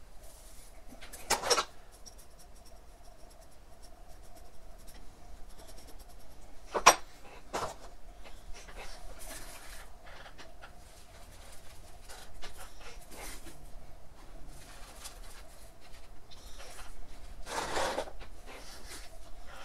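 Gritty potting mix of perlite and turface being scraped and pressed into a pot by hand around jade plants. There are sharp clicks about a second and a half and seven seconds in, the second the loudest, and a longer gritty rustle near the end.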